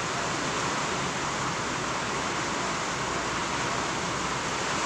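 Steady, even hiss that holds one level throughout, with no distinct scrapes or knocks standing out.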